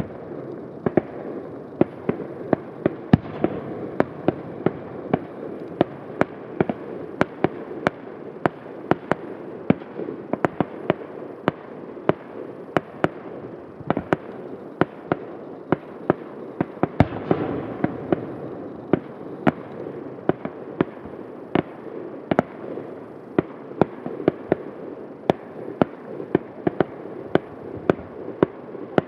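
Fireworks display: an irregular string of sharp bangs from bursting aerial shells, about two or three a second, over a steady rumble. The bursts thicken and grow louder about halfway through.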